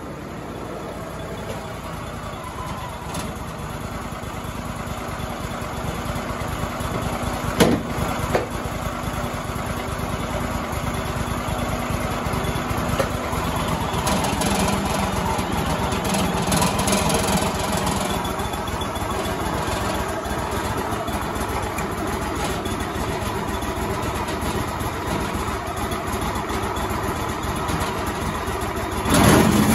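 Wood-Mizer LT35 band sawmill running on its engine, a steady drone that slowly grows louder, with two sharp knocks about eight seconds in and a loud bang just before the end.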